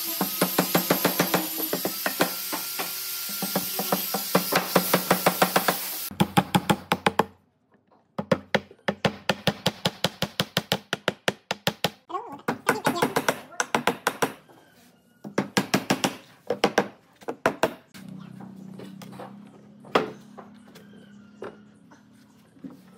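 Hammer tapping rapidly on a pine sofa frame, several knocks a second in runs with short pauses, over a steady hiss for the first six seconds.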